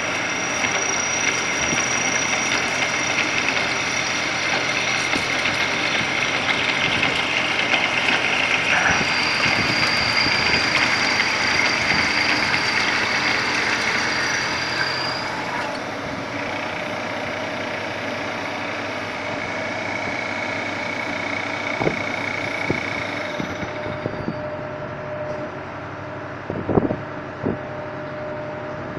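Double-spindle special-purpose U-drill machine running and drilling: a steady machine noise with several high whining tones, rougher and louder in the first half, easing off past the middle, with a few short knocks near the end.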